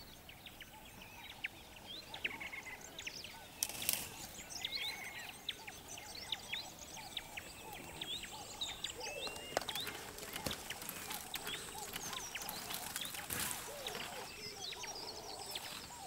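A chorus of many small birds chirping and calling, with a steady run of short, quick notes and a few lower calls mixed in. Two brief bursts of noise break through, about four seconds in and again near the end.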